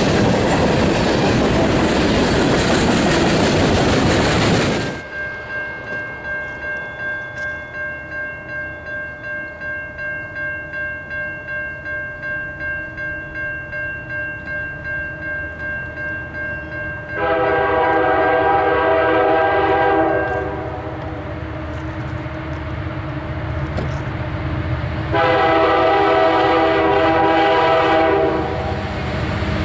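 Freight cars rolling past with wheel clatter, cut off abruptly about five seconds in. Then a grade-crossing bell rings, pulsing about twice a second, until the horn of an approaching Union Pacific SD70M locomotive sounds a long chord about 17 seconds in, a second long blast about 25 seconds in, and starts a third near the end.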